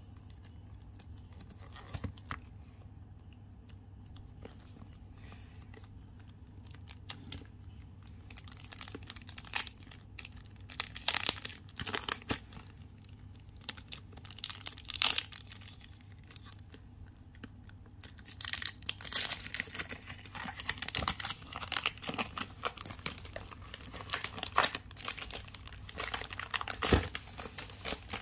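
Cellophane wrap being torn and peeled off a perfume box, crinkling and crackling in bursts. The first several seconds are quiet with a few small clicks, and the crackling grows densest over the last ten seconds.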